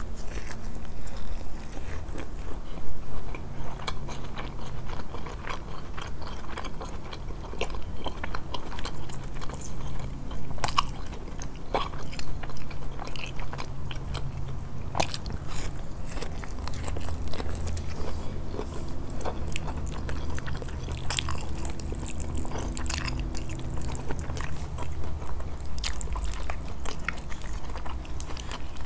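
Close-miked eating of grilled fish: continual chewing and biting with short wet smacks and occasional crunches, over a low steady hum.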